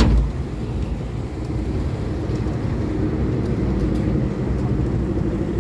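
Steady low rumble of a moving vehicle heard from inside, with a short knock right at the start.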